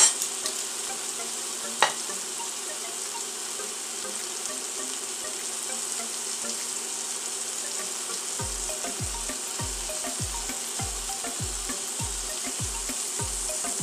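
Beef roast searing in hot olive oil in a stainless steel pan: a steady sizzle, with a sharp tap at the start and another about two seconds in. From about eight seconds in, a low, regular pulsing joins, two or three times a second.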